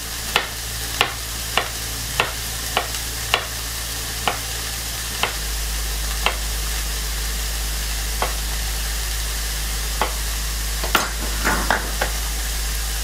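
Onions and grated carrots sizzling steadily in a frying pan, with sharp knocks from garlic being cut at a cutting board. The knocks come about every half second at first, then more sparsely.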